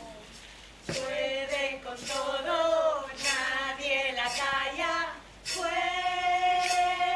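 Women singing a slow unaccompanied melody in sustained notes, starting about a second in and ending on a long held note.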